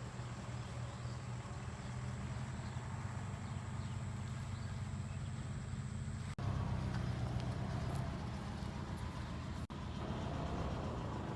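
A steady, low engine drone that continues with small shifts in pitch and level across two abrupt cuts, about six seconds and nine and a half seconds in.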